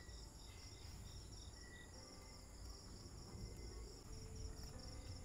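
Crickets and other insects chirping in quick, even repeating pulses over a steady high hiss, with a low rumble underneath.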